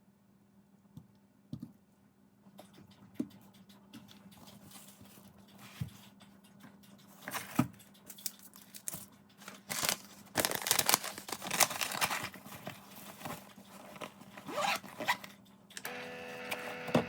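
Packaging being torn open: scattered rips and crinkles that grow denser and faster about halfway through.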